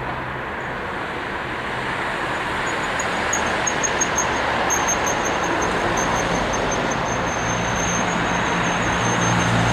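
Road traffic passing along a town street: a steady rush of tyres and engines that grows slightly louder, with a thin high whine from about three seconds in and a low engine hum building near the end.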